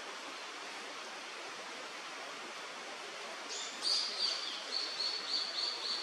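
Steady rush of flowing stream water. About three and a half seconds in, a bird starts calling: a quick run of short, high notes, about three a second, that carries on past the end.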